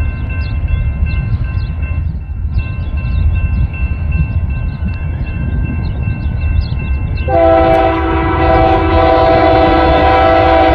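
Union Pacific GE C44ACM locomotive 7087, leading a freight train, rumbles heavily as it approaches. About seven seconds in it sounds its multi-tone air horn in one long blast that lasts to the end.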